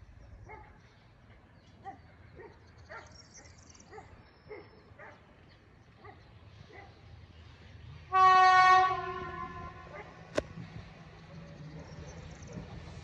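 A train horn sounds one short, loud single-pitched blast about eight seconds in, over the low rumble of the approaching train. Before it, faint dings about twice a second come from the level crossing's warning bell. About two seconds after the horn there is a single sharp knock.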